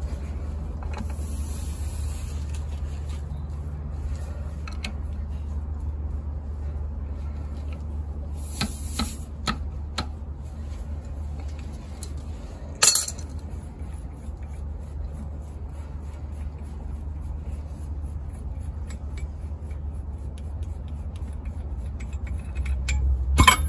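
Scattered metal clinks of an adjustable spanner and a steel seal-press tool as the tool's nut is undone and the tool is taken off a Unimog front hub, the sharpest clink about thirteen seconds in. A steady low hum runs underneath.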